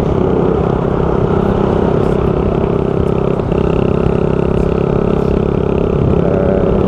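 Motorcycle engine running at a steady cruising speed, heard from on board the bike, with wind and road rush.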